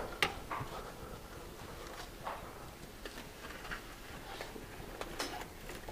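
Faint, scattered light clicks and knocks with footsteps as a motorcycle is walked by its handlebars indoors, its engine not running.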